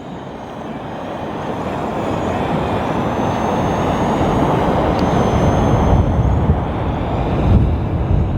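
Rushing wind buffeting the microphone, swelling over the first few seconds and then holding loud, with the faint thin high whine of the SwellPro Spry drone's motors running through it.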